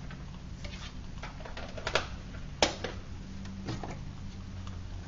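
Scattered light clicks and taps, the sharpest about two and a half seconds in, over a steady low hum: hands at work lighting a homemade tin-can alcohol stove from the top.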